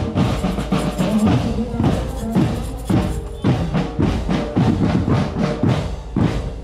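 Marching band drum line playing: marching bass drums and other drums beating a steady, repeating rhythm.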